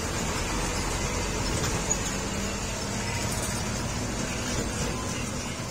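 Heavy box truck's diesel engine running low and steady as the truck rounds a hairpin close by.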